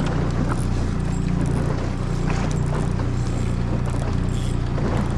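Boat motor running steadily at trolling speed, a constant low hum, with a few light knocks on top.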